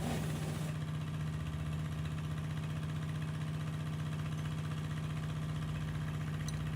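A motor or engine running steadily at an even speed, a constant hum with no change in pitch or level.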